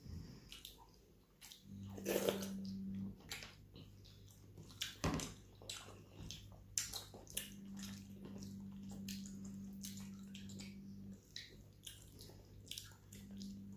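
Close eating sounds: many short wet clicks and smacks of chewing and of fingers mixing rice and fish on a plate. A low steady hum comes and goes underneath.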